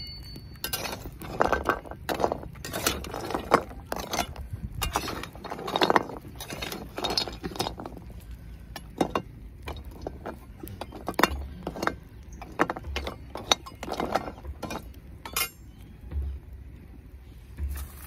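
Metal spatula scraping and clinking against an iron kadhai while lumps of multani mitti (fuller's earth) are stirred and turned as they roast, the lumps knocking in the pan. The strokes come thick in the first half and thin out in the second.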